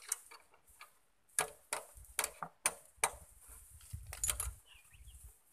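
Irregular sharp clicks and light metallic taps from hands working a part loose on a single-cylinder stationary engine, with a low handling rumble through the middle.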